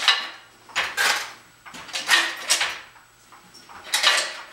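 Hand-lever metal shrinker squeezing a sheet-steel patch panel: a sharp metallic clank with each pull of the handle, five in all, roughly a second apart, the first the loudest.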